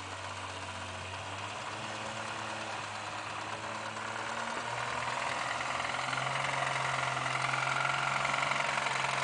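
Off-road vehicle's engine running under load, its pitch stepping up about halfway through and growing louder. The engine has a connecting rod starting to knock.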